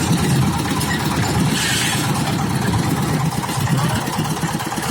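Construction machine's engine running steadily with a fast low throb, with a brief hiss about one and a half seconds in.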